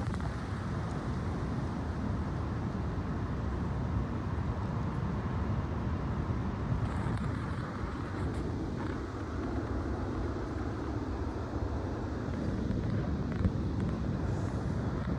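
Strong wind blowing steadily, rumbling on the microphone.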